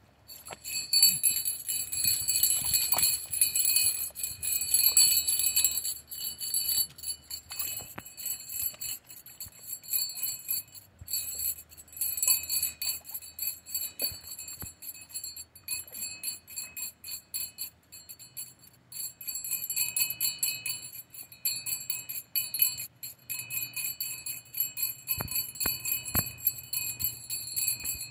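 A small hand-held metal bell being shaken, jingling in quick repeated strikes that keep the same set of high ringing tones going. It is loudest in the first few seconds and again in the second half.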